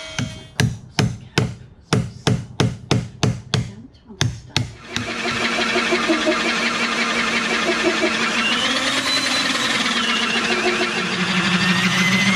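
About a dozen hammer blows on wood, roughly three a second. Then, about five seconds in, an electric drill starts and runs steadily, driving a large hole-saw cutter through the wood, its pitch wandering under load.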